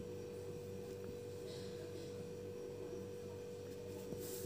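A faint steady hum held on one tone, with faint ballpoint pen strokes on paper.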